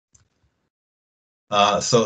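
Near silence: the call audio is gated to nothing, with one tiny faint blip. About one and a half seconds in, a man's voice starts speaking.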